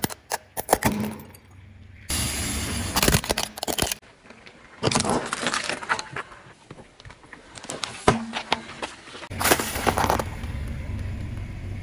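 A car tyre rolling slowly over objects and crushing them, in several short cuts: plastic snapping and crackling as a tub of jelly is squashed, then dried peas crunching under the tread near the end. Sharp cracks stand out over a low rumble of the tyre.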